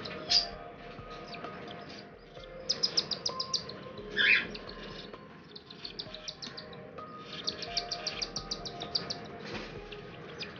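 Aviary birds chirping: fast runs of high, rapid chirps that come and go, with louder, sharper calls near the start and about four seconds in.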